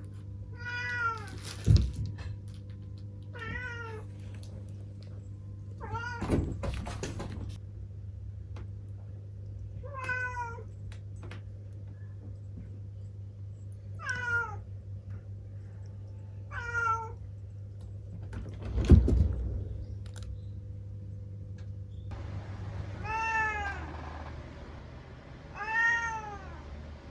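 A domestic cat meowing repeatedly: about eight short, separate meows, each rising and falling in pitch. Three loud thumps fall between them, the loudest about two-thirds of the way through.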